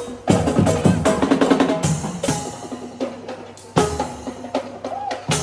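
Background music with a drum beat: drum kit hits under pitched instrument notes.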